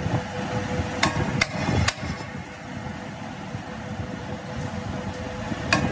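Lathe spinning a truck flywheel in its chuck, running with a steady hum, with a few sharp metallic knocks: three close together about a second in and one more near the end.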